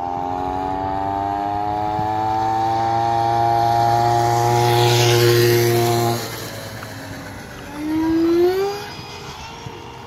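Electric ducted fan of a radio-controlled Saab Viggen model jet flying past: a loud whine of several tones whose pitch creeps upward for about six seconds, with a rush of air as it comes closest, then drops away suddenly. About eight seconds in, a shorter whine rises in pitch.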